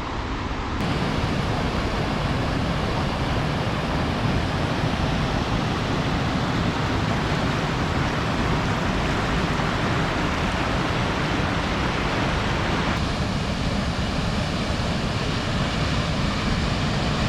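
Steady rush of a waterfall close by, with spray and mist in the air; the sound gets brighter and more hissy about thirteen seconds in.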